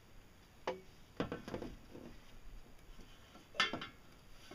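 Metal parts being handled: a metal tube and channel knocking and clinking. There is a sharp knock less than a second in, a short cluster of knocks soon after, and the loudest knock about three and a half seconds in.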